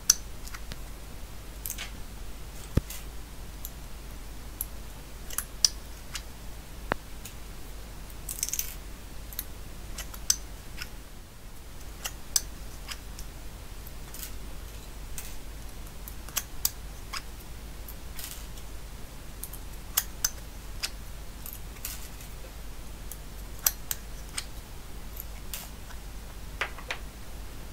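Sharp plastic clicks, irregular, every second or two, from a homemade plastic resistor lead-forming tool as its lever is pressed down to bend resistor leads and the formed resistors are lifted out, one after another.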